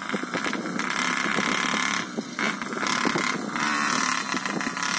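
Small 49cc two-stroke pocket-bike engine of a homemade RC buggy running under load as it drives over dirt, its revs swelling and dropping every second or so as the throttle is worked.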